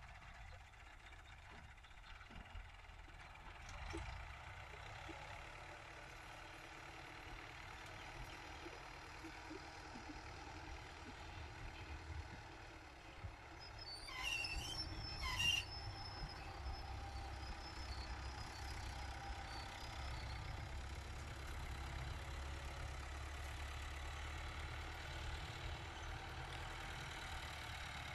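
Fiat 480 tractor's diesel engine running steadily as it pulls a disc harrow through ploughed soil, a low rumble that grows louder in the second half. Around the middle come two short high-pitched sounds about a second apart, the louder of them the loudest moment.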